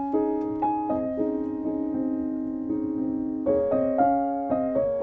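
Soft background piano music: a slow melody of sustained notes over held chords.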